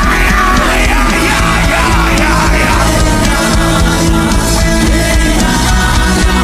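Loud live worship music from a band, dense and steady throughout, with a voice singing a wavering line over the first few seconds.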